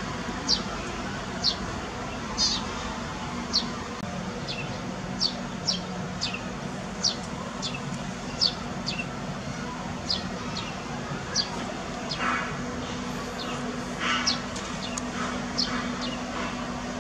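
A bird chirping: short high chirps that drop quickly in pitch, repeating about once a second, over a steady low hum. A couple of brief raspy sounds come in about three-quarters of the way through.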